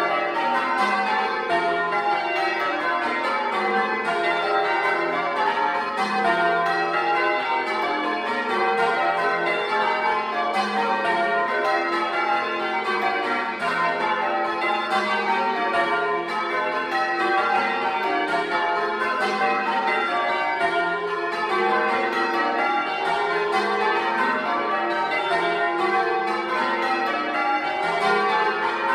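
A ring of ten church bells rung full-circle in changes, the method Grandsire Caters with the tenor in F covering at the back, heard close up in the belfry: an even, unbroken stream of loud bell strikes, each note overlapping the ring of the ones before.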